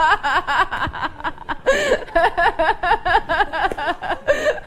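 Human laughter in rapid ha-ha pulses, about five a second, broken by sharp gasping in-breaths nearly two seconds in and again near the end.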